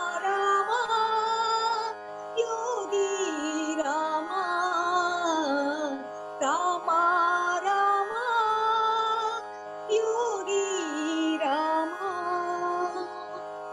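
Carnatic-style devotional music: a gliding melody in phrases of a few seconds over a steady drone. The melody stops about 13 seconds in, leaving the drone alone and quieter.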